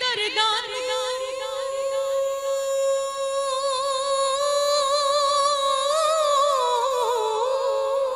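A woman singing Punjabi devotional verse into a microphone. After a quick ornamented run, she holds one long wordless note with a slight vibrato, and the note wavers and dips near the end.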